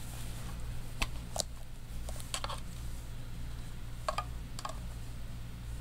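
Light clicks and knocks, about six scattered through, as watches and their boxes are handled and moved about on a table, over a steady low hum.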